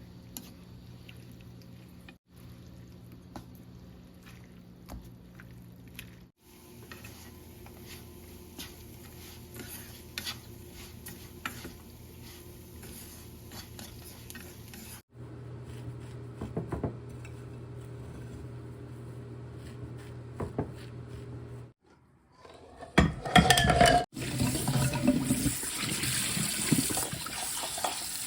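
Kitchen work sounds over several short cuts: small clicks and knocks of utensils and dishes over a low steady hum. Then, for the last few seconds, a louder rush of water.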